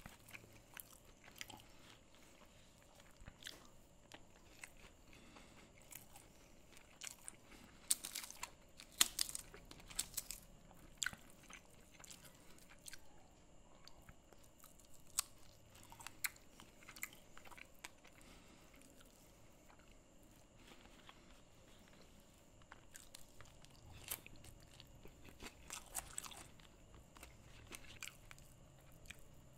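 Close-miked chewing and crunching of a hand-eaten meal of red rice and curry with cashews, dried fish and crisp crackers. The chewing is faint, with clusters of sharper crunches about eight to eleven seconds in and again around twenty-four to twenty-seven seconds.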